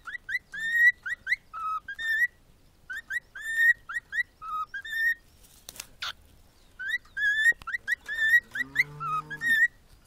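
Cockatiel whistling a learned tune: three repeated phrases of quick, rising whistled notes with short gaps between them. A brief noise comes between the second and third phrase, and a short lower-pitched sound joins under the whistling near the end.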